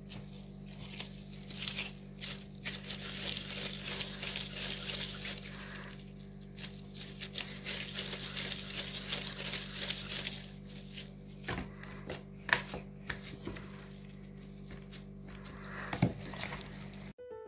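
Disposable plastic gloves crinkling and rustling as hands pull apart and shape soft dough, with a few light knocks in the second half; a steady low hum runs underneath.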